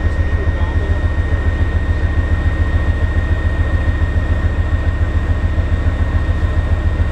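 Bergepanzer 2 armoured recovery vehicle's 10-cylinder diesel engine idling, a loud, evenly pulsing low rumble, with a thin steady high whine above it.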